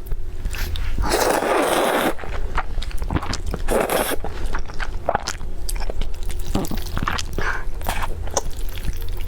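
Close-up eating sounds: biting and crunching food, with scraping and many short crackles.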